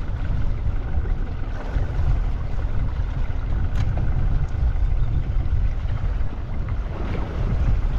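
Steady low rumble of a fishing boat's engine running at sea, with a faint steady whine over it and a single brief click near the middle.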